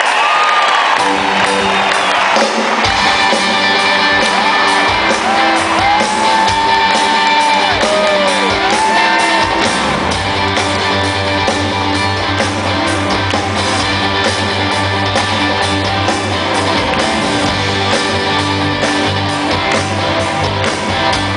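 Live rock band playing a song intro led by electric guitar. A heavier bass-and-drum low end comes in about halfway, with the crowd shouting over the start.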